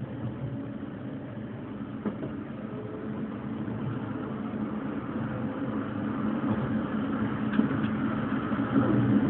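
Electric railcar running along the track: a steady rumble of wheels on rails and motor hum, gradually growing louder, with a couple of faint clicks.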